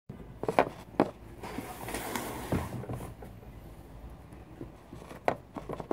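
Handling of plastic cassette cases and packaging: a few sharp plastic clicks, with a stretch of crinkly rustling in the middle.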